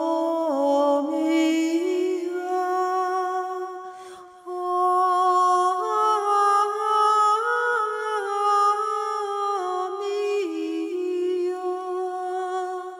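A woman's solo voice singing a slow chant, holding long notes that step smoothly up and down, with a short break for breath about four seconds in.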